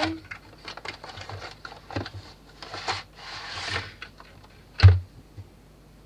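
A cardboard fan box being opened and unpacked by hand: small clicks and taps of the cardboard and plastic, a knock about two seconds in, then a scraping slide as the plastic tray comes out. Near the end a heavy thud on the wooden table is the loudest sound.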